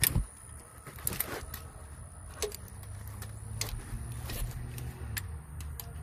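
Hand tools clicking and knocking against metal engine parts while working at a stuck camshaft position sensor, a loud knock right at the start and then about half a dozen scattered clicks, over a low steady rumble.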